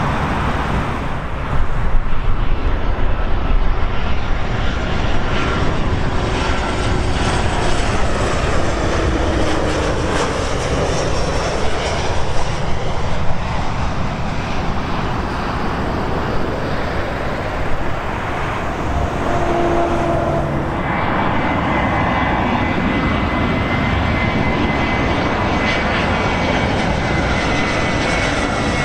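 Jet airliners on final approach to land, their engines giving a steady rumble. About two-thirds of the way in, a steady high engine whine comes in over it.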